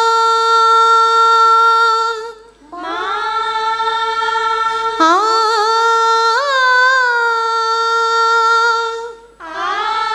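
A woman's singing voice holding long sustained notes on the vowel 'maa' of a Telugu devotional song. It comes in three long phrases, and the middle one steps up in pitch about halfway through and carries small ornamental turns.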